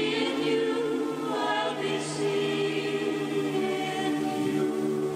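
Music with voices singing together in sustained chords, played back from a reel-to-reel tape on a Teac A-4000S deck.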